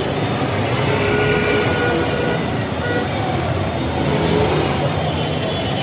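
Steady rumble of a moving passenger vehicle heard from inside its cabin: engine and road noise.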